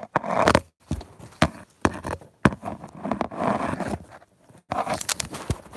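Handling noise from a phone being picked up and moved about: a quick run of sharp knocks and scuffs with short bursts of rustling rubbing on the microphone.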